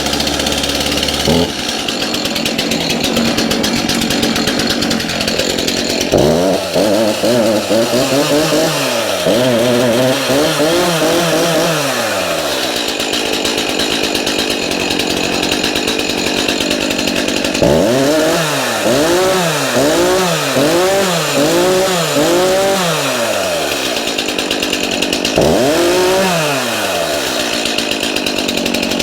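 Stihl MS 251 C two-stroke chainsaw running, first at a steady speed, then revved up and back down again and again, with a quick string of revs in the second half. The revving is a test for a chain that used to work loose within seconds after a new chain tensioner was fitted.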